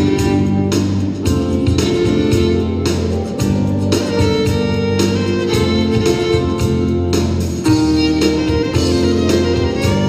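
Live Celtic–Native American fusion music: a fiddle leads over sustained band chords and a steady drum beat of about two strikes a second.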